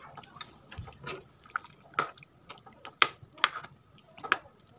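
A ladle stirring thick chicken-and-potato curry in a black wok: wet squelching of the gravy, with about five sharp knocks and scrapes of the ladle against the pan, the loudest about three seconds in.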